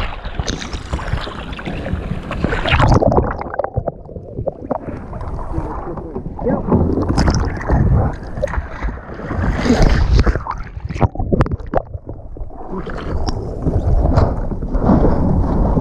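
Water sloshing and splashing against sea kayaks, with irregular knocks and rubbing on the hull as a capsized paddler hauls himself onto the deck and back into the cockpit during a T-rescue.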